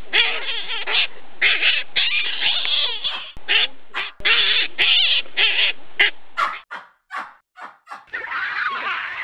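Baboons calling: a string of harsh, screeching calls, then a run of short sharp calls about two or three a second, and another long harsh call near the end.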